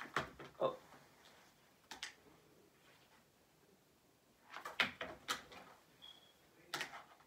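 White plastic clothes hanger clattering and knocking as it is handled and picked up off a chair: a few short clicks and knocks, the busiest cluster about two thirds of the way through.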